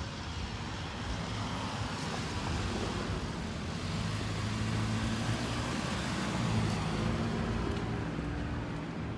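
Road traffic: a motor vehicle's engine hum and tyre noise, swelling to a peak about two-thirds of the way through and then easing off.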